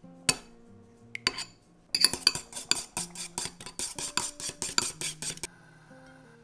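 Metal chopsticks beating eggs in a ceramic bowl. A couple of single clinks come first, then a quick, steady run of clinks against the bowl from about two seconds in, stopping abruptly about a second before the end. Soft background music plays underneath.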